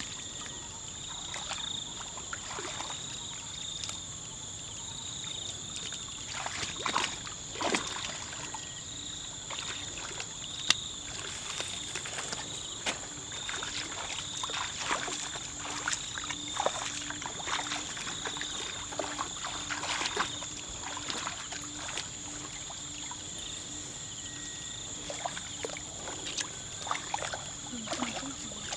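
Shallow muddy water sloshing and splashing as people wade through it and grope in it by hand, with a few sharper splashes now and then. A steady high-pitched insect chirring runs underneath.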